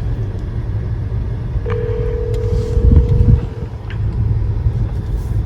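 Telephone ringback tone: one steady tone about two seconds long as an outgoing call rings, over a steady low rumble.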